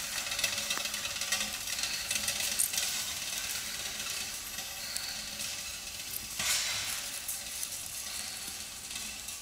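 Horse-drawn forest plough working through dry beech leaf litter and soil: a continuous crackling rustle with scattered sharp clicks from the plough and harness, easing slightly as the team moves away.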